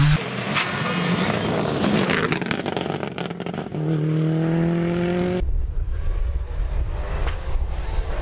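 Rally car engines on a gravel stage, in several cut-together takes: an engine faint under gravel and road noise, then a steady engine note climbing slowly as a car accelerates, then a deep low engine rumble as another car comes toward the microphone.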